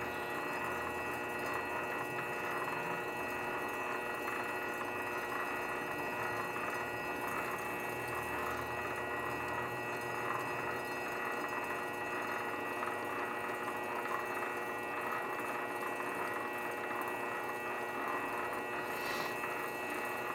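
Grizzly G0768 lathe running steadily, its motor giving a constant whine made of several steady tones.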